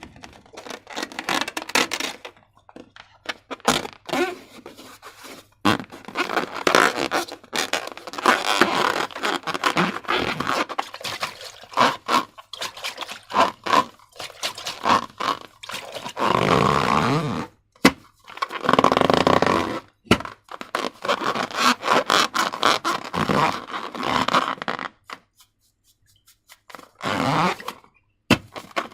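Slime being worked by hand: irregular scraping, squishing and clicking, with a few sharp knocks and short pauses.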